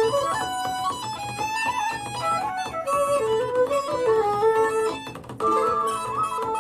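Instrumental music with guitar and fiddle, played back through a Sony SRS-HG10 Bluetooth speaker with its EXTRA BASS mode off. The music briefly drops out about five seconds in, then resumes.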